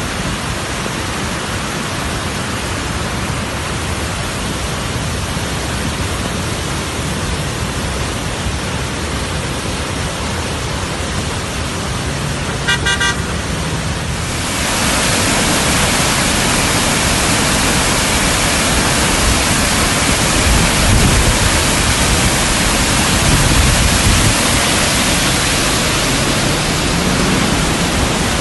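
Flash-flood water rushing, a steady noise. A car horn toots briefly about halfway through, and just after it the rushing gets louder and brighter as a muddy torrent pours down a rocky slope.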